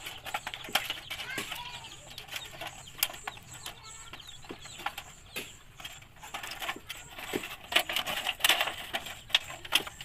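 Thin wire scraping and clicking against rusty galvanized iron sheet as it is threaded through punched holes and twisted tight, the loose sheet metal rattling. Scattered sharp clicks throughout, busier and louder near the end.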